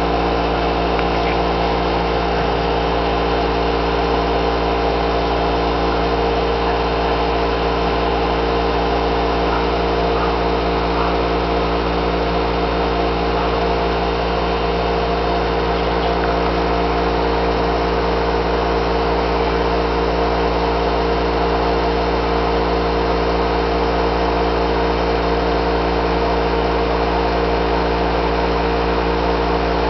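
A loud, steady mechanical hum made of several fixed tones, with no change in level or pitch.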